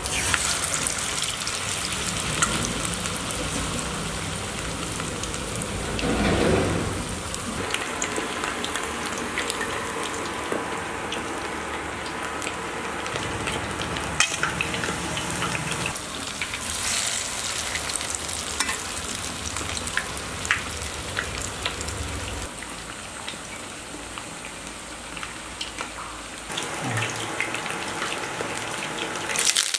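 Hot oil sizzling and crackling as food fries: chicken leg pieces deep-frying, then whole spices frying in oil in an aluminium kadai. The sizzle swells louder for a moment about six seconds in.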